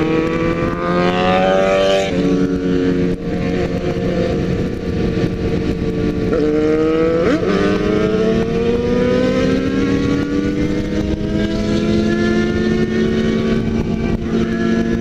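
Suzuki GSX650F's inline-four engine pulling hard at highway speed, its pitch climbing and then dropping back at each gear change, with other sport bikes' engines running close by. Steady wind rush throughout.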